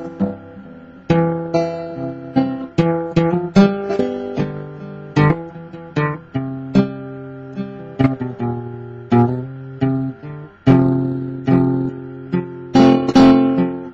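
Steel-string acoustic guitar played solo, chords and notes picked and strummed one after another, each ringing out and fading before the next.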